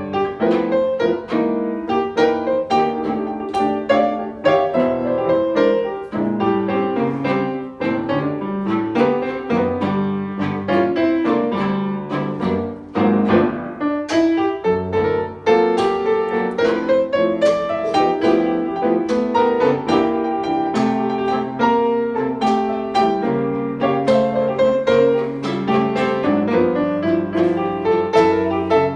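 Solo piano music: a continuous run of struck notes and chords, with many notes in quick succession and little pause.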